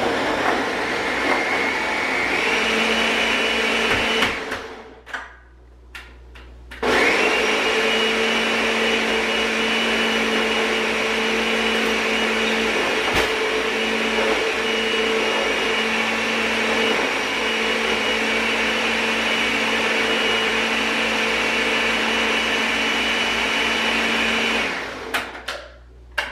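Countertop blender blending a smoothie: a short run of about four seconds whose whine climbs in pitch as the motor speeds up, a pause of about two seconds, then a long steady run of about eighteen seconds that stops near the end.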